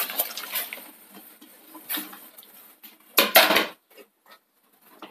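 Clinks of a bowl against a steel pot as sliced tapioca is tipped into boiling water, with a louder clatter of dishes a little after three seconds in.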